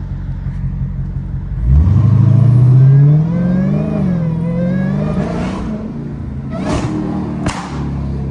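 Dodge Hellcat's supercharged 6.2-litre Hemi V8 idling, then accelerating hard about two seconds in, its revs rising, dipping and rising again. Near the end come two sharp exhaust bangs less than a second apart, backfire pops from the car's flame kit.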